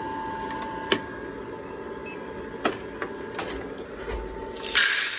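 A few sharp clicks and knocks as the roaster's bean tray is handled, then freshly roasted coffee beans poured into a plastic cupping tray near the end, a loud rattling rush lasting about a second.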